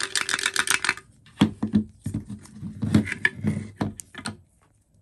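Rubbing, scraping and light knocks of a plastic fuel tank being handled while a rubber fuel line is drawn out through its neck. The noise stops about four and a half seconds in.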